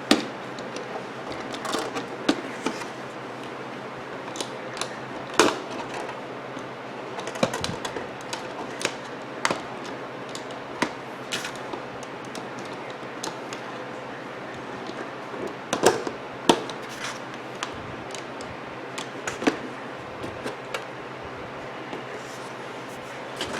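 Scattered, irregular clicks and light knocks from handling a battery wall clock as a battery is fitted into its movement and the clock is tested.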